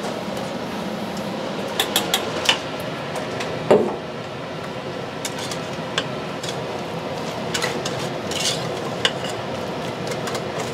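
Kitchen utensils and bakeware clinking and clattering: scattered sharp knocks over steady background noise.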